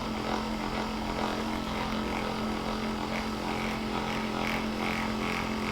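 Handheld electric percussion massager running with a steady, even hum as it is worked over the patient's muscles to loosen them.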